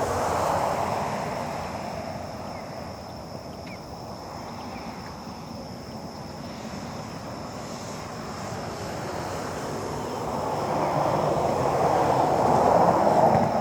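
Road traffic: vehicles passing by on a nearby road, one fading out just after the start and another building up to pass near the end.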